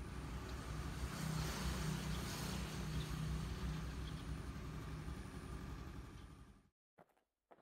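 Steady low hum of a vehicle engine running nearby, with outdoor background noise, cutting off suddenly near the end; then a couple of faint footsteps.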